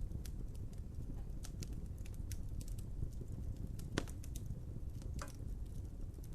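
Wood fire crackling: a steady low rumble of burning with frequent sharp pops and snaps, the loudest snap about four seconds in.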